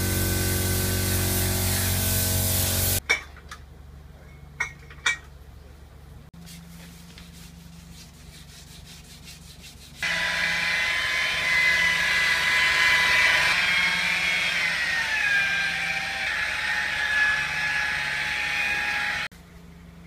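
Paint spray gun spraying the bumper, a loud hiss over a steady hum from the air supply, cutting off about three seconds in. A quiet stretch with a few clicks follows. From about ten seconds in, a polisher works the refinished bumper with a steady whine whose tones slide in pitch, and it stops suddenly near the end.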